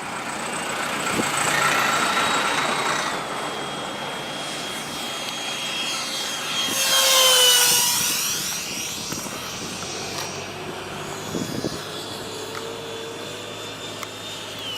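Electric ducted-fan RC jet whining as it flies past. It swells about two seconds in, then makes a louder close pass around the middle, where the whine drops in pitch as it goes by.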